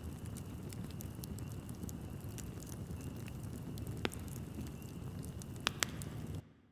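Fire crackling: a steady low rumbling hiss with scattered small crackles and a few sharper pops about four seconds in and again near the end. It cuts off suddenly shortly before the end.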